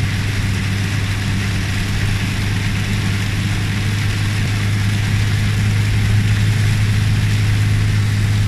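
Steady drone inside a Toyota's cabin while driving through heavy rain: a low engine and road hum under a broad hiss of rain and wet tyres on the road.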